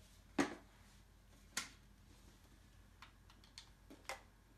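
A few short sharp clicks on a quiet background, the two loudest about half a second and a second and a half in, then three fainter ones near the end.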